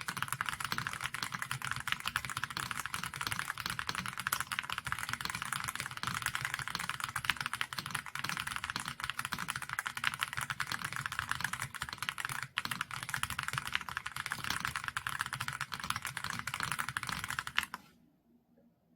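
Fast, continuous typing on a Xinmeng M67 full-aluminium mechanical keyboard with Outemu White Jade linear switches: a dense, light-sounding clatter of keystrokes with one brief pause partway through, stopping abruptly about a second before the end.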